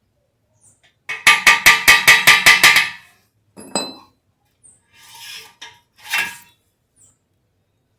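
A quick run of about eight sharp metal-on-metal taps, roughly five a second, each ringing briefly, then a single clink and a few short scrapes of metal parts being handled.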